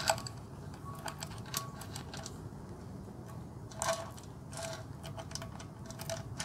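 Steel timing chain of an Ecotec engine clinking and rattling as it is worked by hand onto the sprockets: scattered light metallic clicks, with a louder clatter about four seconds in.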